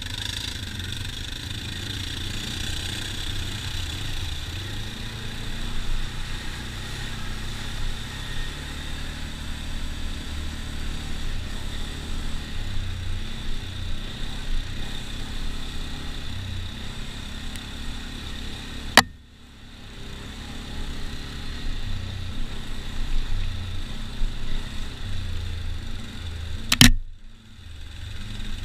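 ATV engine running as the quad rides along, its low drone rising and falling with the throttle. Two sharp clicks come about two-thirds of the way in and near the end, each followed by a brief dip in the sound.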